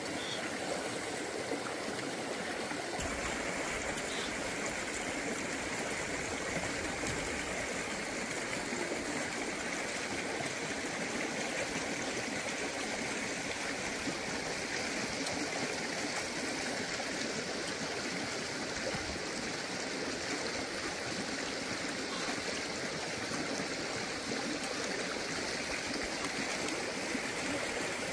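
Stream water flowing steadily over stones, a continuous rushing and trickling.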